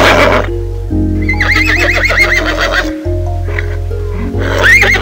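Horse whinnying over background music with held notes: a whinny tails off at the start, a longer wavering whinny comes about a second in, and another begins near the end.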